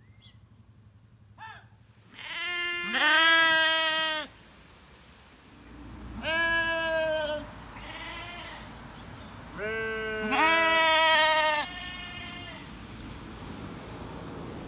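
Sheep bleating in a field: three loud, long bleats, with fainter answering calls between and after them. The flock is calling to the sheep still left in the barn.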